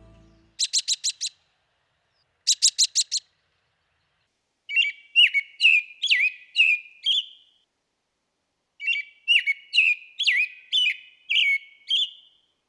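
American robin giving two quick bursts of sharp call notes, then singing two phrases of its caroling song, each a run of about seven clear whistled notes lasting about three seconds.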